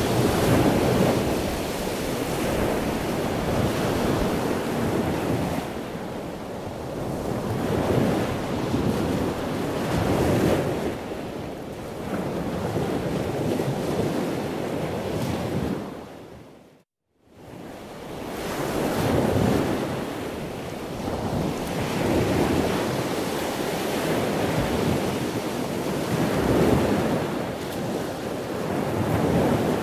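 Ocean surf breaking and washing up a sandy beach, swelling and ebbing every few seconds. A little past halfway the sound fades out to silence for a moment and then returns.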